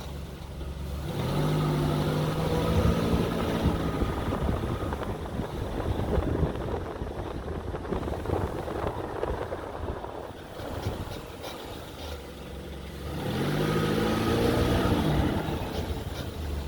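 Front brakes of a 30-series Toyota Alphard giving an abnormal pitched creak, twice: once from about a second in for a few seconds, and again near the end, over the vehicle's running noise. The creak is the brake fault being shown.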